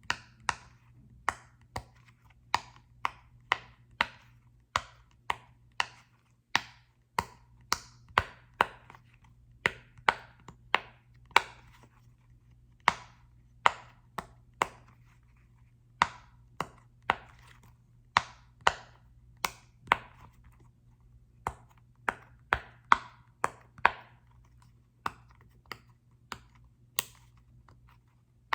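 Sharp taps on a small soccer-ball-shaped object, about two a second at an uneven pace, some with a brief ring.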